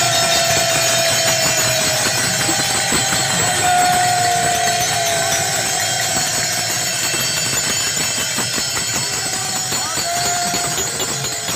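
Many pairs of taal hand cymbals clashing together in a loud, dense, continuous jingling wash, with a crowd of voices holding long chanted notes underneath: a Warkari bhajan.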